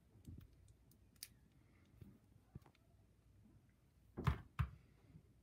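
Faint clicks of a plastic package being handled, then two short knocks on the dresser top a little over four seconds in as the small figure is handled and set down.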